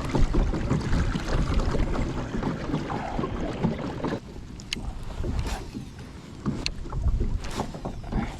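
Wind buffeting the microphone and water moving against a kayak, loudest for the first few seconds, then quieter with a few short light knocks against the hull.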